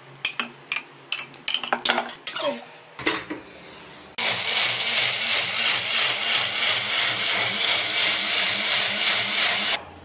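Knocks and clicks of a plastic personal-blender jar being handled as spinach is pushed in on top of tomatoes and onions. About four seconds in, the blender motor starts and runs steadily, grinding the spinach into a purée, then cuts off suddenly just before the end.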